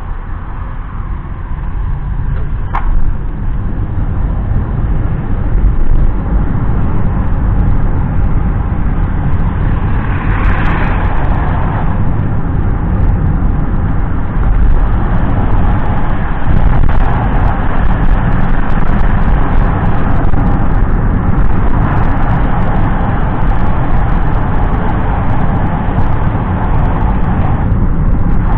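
Car engine and tyre noise heard inside the cabin, building over the first few seconds as the car pulls away from a traffic light, then a steady road rumble while it drives on. There is a single click about three seconds in.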